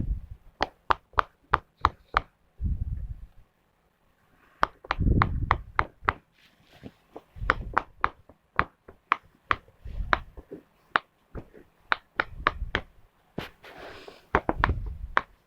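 Square silicone pop-it fidget toy, its bubbles being pressed one after another: quick sharp pops about three or four a second, with a few short pauses, mixed with several dull low thumps.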